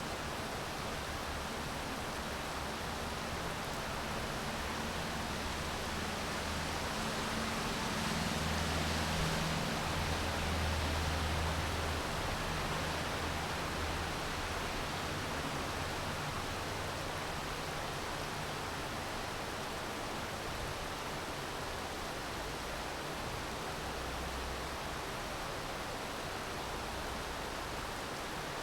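Steady rain falling, an even hiss. A low rumble swells and fades about a third of the way in.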